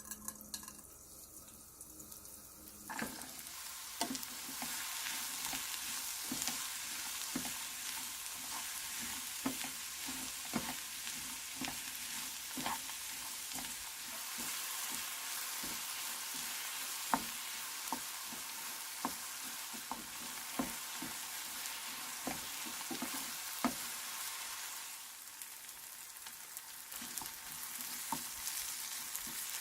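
Food frying in hot oil in a pan: a steady sizzle that comes up about three seconds in, with frequent small clicks and pops through it, easing a little near the end.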